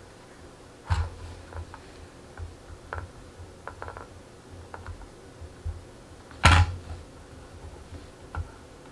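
Scattered light clicks and taps of hands and an X-Acto knife working vinyl wrap onto a polymer PMag rifle magazine, with one sharper knock about six and a half seconds in.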